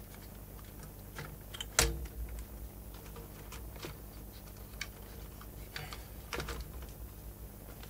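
Scattered light clicks and taps of a part being worked back into the chassis of a Grundig 2x4 Super Video 2000 recorder by hand, the sharpest knock just under two seconds in and a few more around six seconds.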